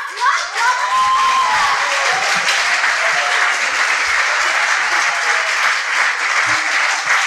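Theatre audience applauding steadily, a dense clapping that swells in just after the start as a scene ends.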